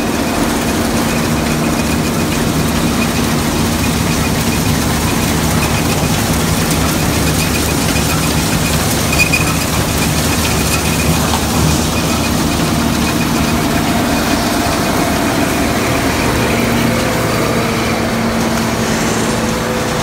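Gleaner combine running under load while harvesting soybeans: a steady mechanical drone with a low hum and a thin high whine.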